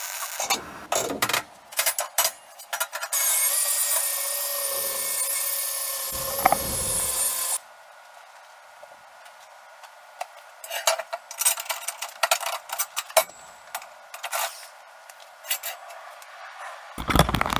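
Steel metalworking: scattered knocks, then about three seconds in a loud, steady harsh rasping noise that runs for about four and a half seconds and cuts off. After that come lighter clicks and knocks of steel tubing being handled and fitted, ending in a louder clatter.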